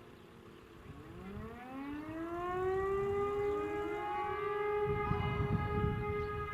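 Fire-brigade alarm siren winding up, rising in pitch for about two seconds and then holding a steady wail: the siren alarm that calls out the volunteer fire brigade. A low rumbling noise joins about five seconds in.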